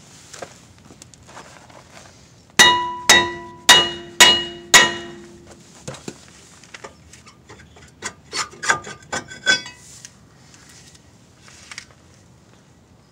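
Hammer blows on a cast-iron rear brake rotor to break it free of the hub: five hard strikes, each ringing like a bell. About five seconds later comes a quicker run of lighter metallic knocks and clinks as the rotor comes loose.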